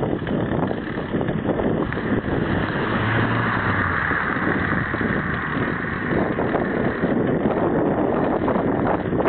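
Wind buffeting a phone microphone on a moving bicycle: a loud, steady, rough rushing that never lets up, with a faint low hum about three seconds in.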